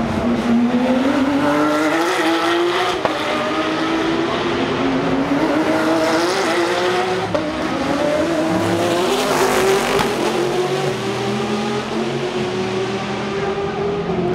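Race car engines accelerating past on a street circuit: several overlapping engine notes climbing in pitch, with steps as they shift gear, one car after another. The sound cuts off suddenly at the end.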